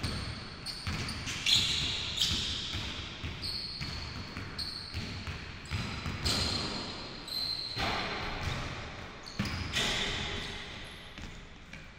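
Basketball dribbled on a hardwood gym floor: a run of repeated bounces, with short high squeaks now and then.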